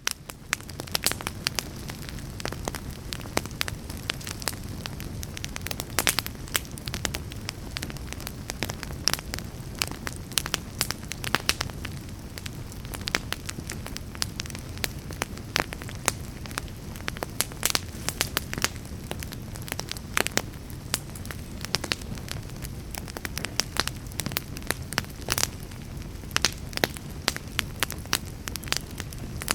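Fire burning in a fireplace, with frequent irregular sharp crackles and pops over the steady low sound of the flames.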